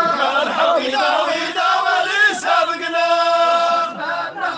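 Voices chanting an Arabic song refrain in unison, holding long notes between shorter bending phrases.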